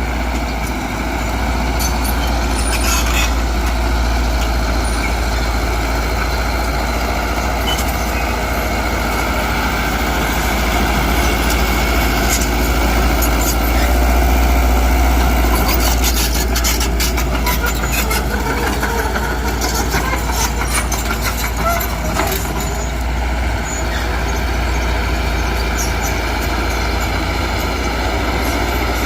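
Heavy diesel earthmoving machinery running steadily, with a stretch of metallic clatter and clicks about halfway through.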